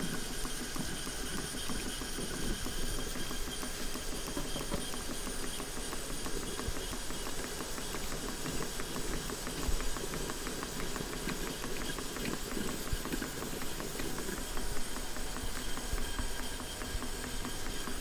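Stuart model steam engines running on live steam: a steady hiss of steam with rapid, even exhaust beats.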